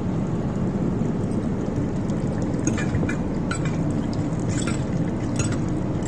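Tap water running into a lab sink and splashing over a slide rack held under the stream, with several short sharp splashes or clinks in the middle, over a steady low rumble.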